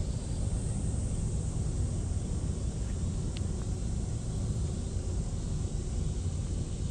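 Steady low rumble of wind buffeting an action camera's microphone outdoors.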